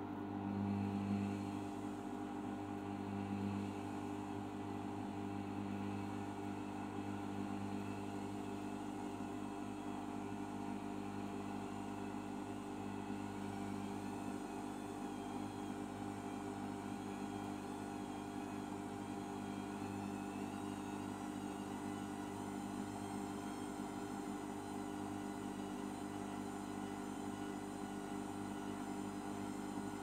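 Arçelik 5083 front-loading washing machine spinning its drum in an intermediate spin: a steady motor whine with a low hum that swells briefly in the first few seconds as the drum gets going, then holds at a steady speed.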